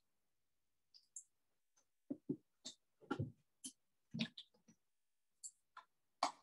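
Irregular short clicks and soft knocks, a dozen or so, some with a dull low thud, like desk, keyboard or handling noise, heard over an open video-call microphone with dead silence between them.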